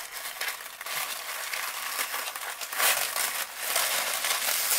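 Tissue paper crinkling and rustling as it is pulled open and unfolded by hand, louder about three seconds in.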